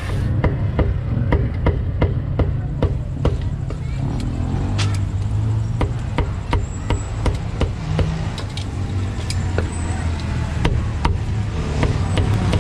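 A cleaver chopping roast meat on a thick round chopping block, a fast steady run of sharp chops about three to four a second, over a steady low rumble.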